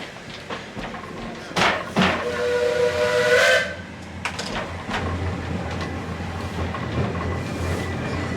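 Narrow-gauge steam locomotive whistle blown once for about a second and a half, after a burst of steam hiss, with a small rise in pitch just before it cuts off. A steady low rumble follows.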